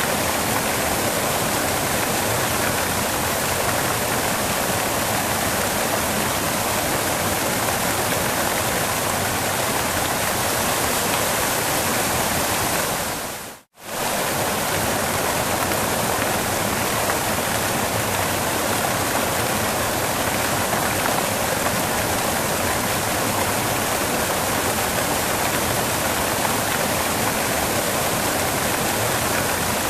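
Waterfall rushing steadily, an even roar of falling water. About halfway through the sound briefly dips out and fades straight back in.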